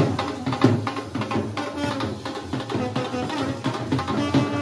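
Music with drums and hand percussion.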